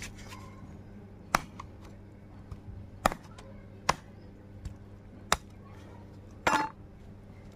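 Large knife chopping raw chicken on a wooden log block: five sharp chops at uneven intervals, the last one a longer, rougher stroke.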